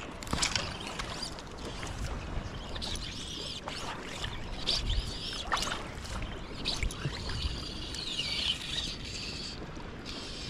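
Wind buffeting the microphone over shallow, rippling water, with birds calling several times in rising and falling whistles.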